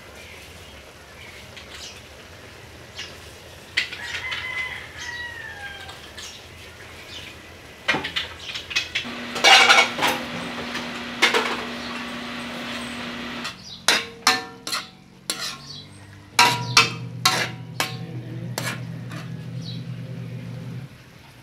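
A metal ladle stirring in a metal wok, scraping and clanking against the pan in a quick run of knocks through the second half. A chicken calls in the background, and a loud noisy stretch of a few seconds comes about midway.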